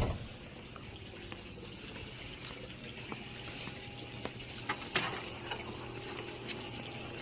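Quiet indoor room tone with a faint steady hum, broken by a few scattered light clicks and knocks, the clearest about five seconds in.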